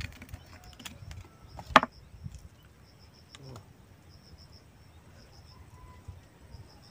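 Insects chirping in short, evenly repeated pulses, with a few sharp clicks and one loud crack about two seconds in.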